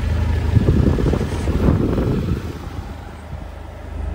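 Low rumble of a car moving on the road, with wind buffeting the microphone, rougher and louder for the first couple of seconds before easing.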